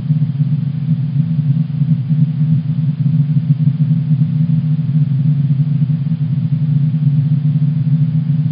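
NASA's sonification of the Sun: a steady, low, rushing hum with no breaks or changes.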